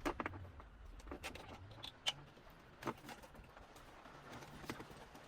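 Plastic wiring-harness connectors being handled and pushed into the back of a car stereo head unit: a handful of separate sharp clicks and knocks, about five in all, with quiet fumbling between them.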